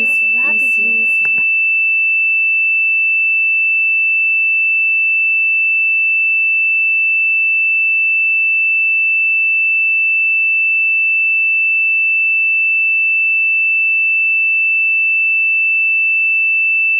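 A single steady high-pitched electronic tone, unchanging in pitch and loudness, with a voice finishing a spoken phrase about a second in.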